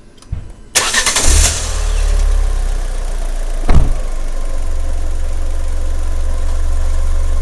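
Fiat 500 petrol engine started: a brief crank, then it catches and settles into a steady idle. A single sharp knock about four seconds in.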